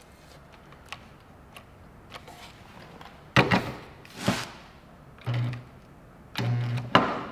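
Hand-held stud welder (dent-puller stud gun) firing against a car's sheet-metal quarter panel: two sharp snaps about a second apart, then two short electrical buzzes, the second one longer, as studs are welded on.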